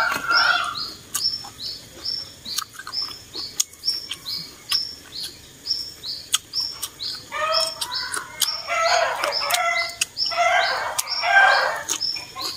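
A bird chirping over and over, about two short high chirps a second. Louder, rougher noises come and go over the last few seconds.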